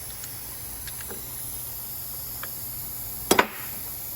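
Steady low workshop background with a few light clicks, and about three seconds in a short, sharp double knock of parts being handled as the top mount and spacer are fitted onto the strut.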